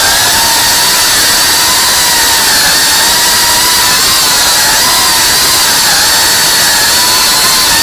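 A 3.5-inch cinewhoop FPV drone's motors and ducted propellers whining in flight over a hiss of propeller wash, the pitch holding steady with small wobbles as the throttle shifts.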